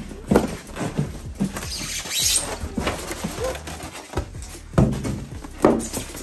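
Polystyrene foam packing squeaking and rubbing as a sewing machine is worked out of it, with several sharp knocks and bumps of the machine and foam against each other and the table.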